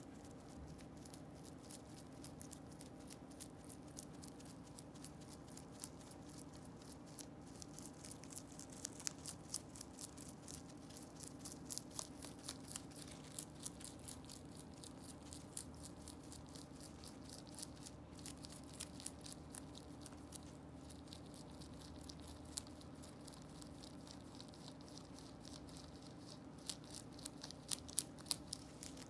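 A rabbit chewing and biting through fresh young corn leaves: rapid, crisp crunching clicks, several a second, with a few louder bites near the end.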